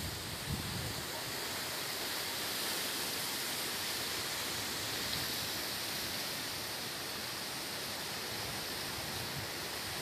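Strong wind rushing through trees and foliage: a steady, even hiss.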